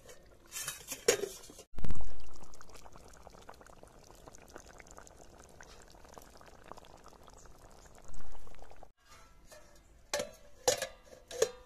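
Cooking liquid bubbling in a pot, with a loud low knock about two seconds in and a few sharp clatters near the end; the sound cuts off abruptly twice.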